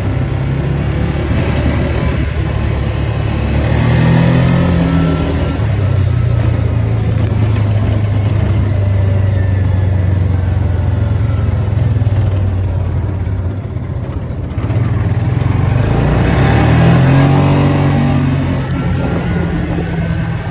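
Engine of a Viking side-by-side utility vehicle running under way, with a rising pitch as it speeds up about four seconds in and again near the end, easing off briefly in between.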